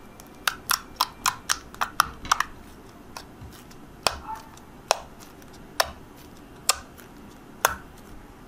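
Yellow fluffy slime squeezed and kneaded by hand, giving sharp little clicks and pops: about four a second for the first two seconds or so, then single pops about once a second.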